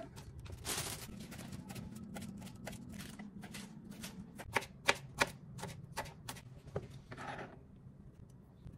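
Kitchen knife chopping spring onions on a plastic cutting board: a run of quick, sharp taps, loudest a little after the midpoint, thinning out near the end.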